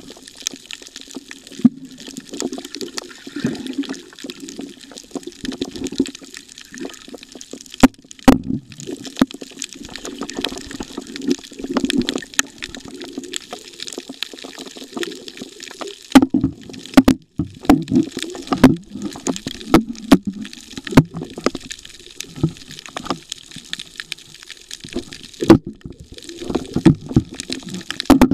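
Muffled water sloshing and gurgling around a camera held underwater, with many sharp clicks and knocks scattered throughout.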